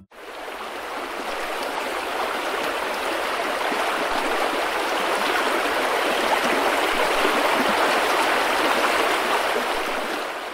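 Mountain stream rushing over rocks in a steady, even wash of water noise that fades in at the start and fades out near the end.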